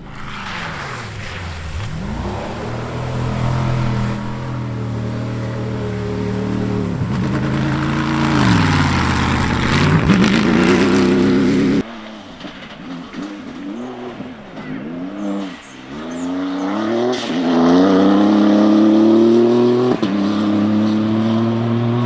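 Rally-raid car driven hard over rough grassland, its engine revs climbing and dropping again and again. About halfway through the sound cuts abruptly to another pass, where the engine note rises and falls several times and grows louder as the car comes closer.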